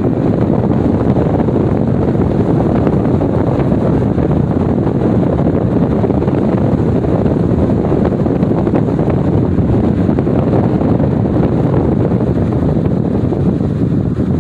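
Wind buffeting the microphone: a loud, steady rumble with no breaks.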